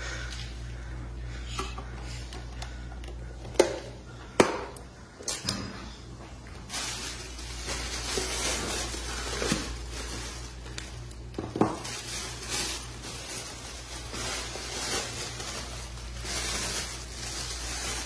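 A clear plastic clamshell cupcake container being handled: a few sharp plastic snaps and clicks, then a long stretch of crinkling and rustling of plastic and a plastic bag. A steady low hum runs underneath.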